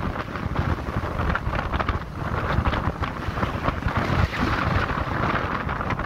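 Storm surf on the North Sea crashing and washing in foam over the shore and a slipway, in a continuous roar, with strong gusty wind buffeting the microphone.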